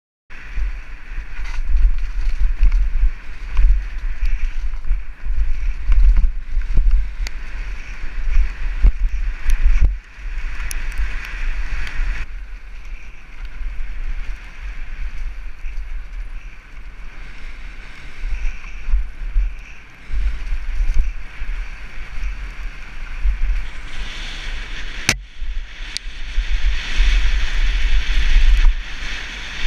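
Wind buffeting a helmet-mounted camera's microphone and the rumble and rattle of a mountain bike rolling fast down a dirt and rock trail, with scattered sharp knocks and one loud crack about 25 seconds in. The sound changes in character near 12 and 24 seconds, where clips are cut together.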